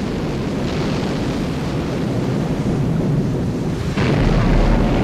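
Constant wind and sea noise of a ship in a battle, then a sudden heavy blast about four seconds in, followed by a deep rumble.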